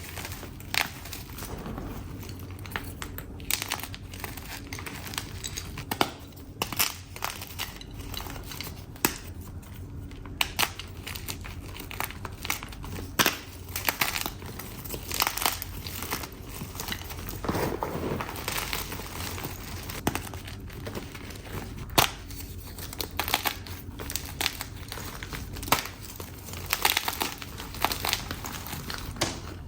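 Chalk blocks being crushed and crumbled: irregular sharp crunches and cracks, with a longer grinding crumble a little past the middle.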